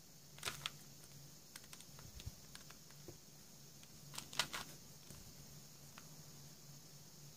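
Plastic layers of a hand-turned 4-layer Super Square twisty puzzle clicking as they are twisted: a quick cluster of clacks about half a second in, scattered light ticks, and a louder cluster of clacks around four seconds in.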